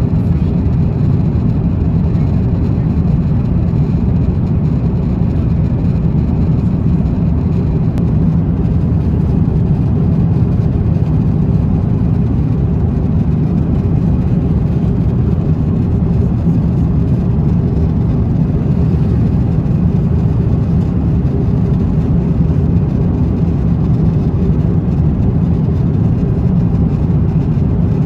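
Steady low rumble of airliner cabin noise in flight, the engine and airflow drone of an Airbus A350-900 heard from an economy seat.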